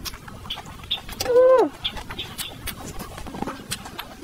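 Close-miked eating sounds: wet mouth clicks and smacks from chewing rice and pork ribs. A little after a second in comes one short, louder pitched cry that falls in pitch at its end.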